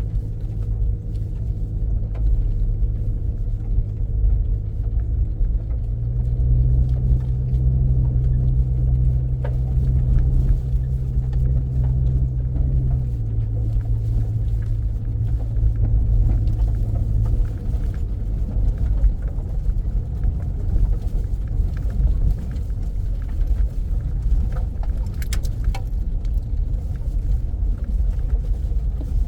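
Car driving, with a steady low engine and road rumble. The engine note steps up about six seconds in and settles back down about seven seconds later.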